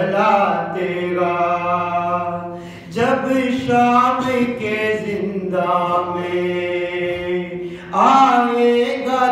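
A man chanting a marsiya, a mourning elegy, solo and unaccompanied, holding long melodic notes. He breaks for breath about three seconds in and again near the end.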